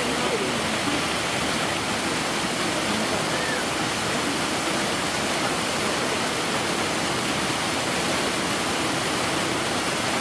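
Steady rushing of water, an even, unbroken wash of noise like water pouring or circulating in a pool.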